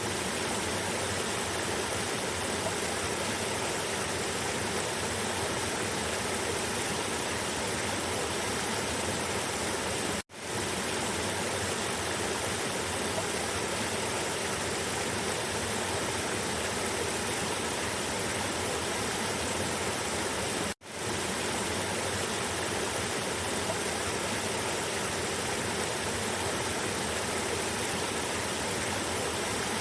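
Cascading river water rushing steadily over rocks. The sound cuts out briefly twice, about ten seconds apart, and fades back in each time.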